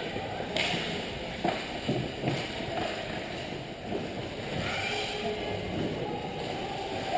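Indoor ice hockey rink during youth play: skate blades scraping and carving the ice and sticks knocking, over the steady hum of the arena. Sharp skate scrapes stand out about half a second and a second and a half in.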